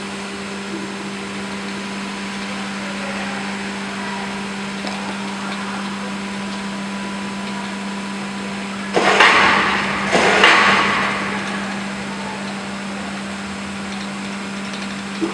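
Steady mechanical hum and whirr of a 5.5 kW submersible propeller mixer running submerged in a water tank on test. Two brief, much louder rushing noises come about nine and ten seconds in.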